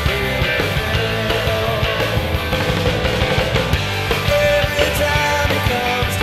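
Studio recording of a rock band, with electric guitars, bass guitar and drums playing at a steady, loud level.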